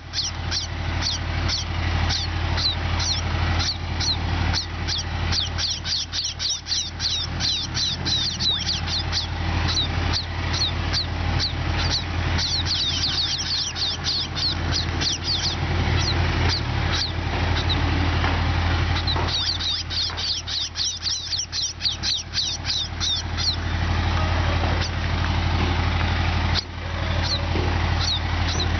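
A flock of sparrows chirping continuously, many short quick chirps overlapping, over a steady low hum.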